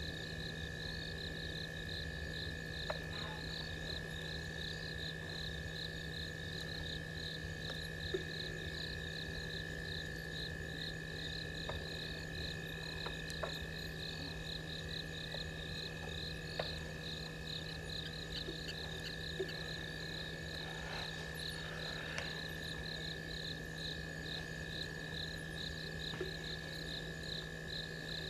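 Night chorus of insects and frogs: a high, rapid pulsing chirp at several pulses a second over a steady high trill and a steady low hum. A few faint clicks stand out here and there.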